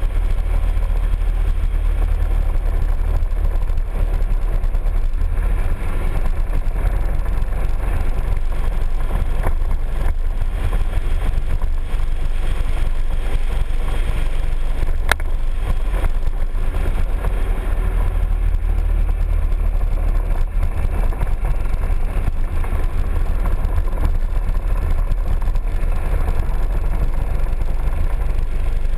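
Piaggio MP3 scooter riding at a steady cruise: the engine running under a heavy, steady low rumble of wind buffeting the scooter-mounted microphone.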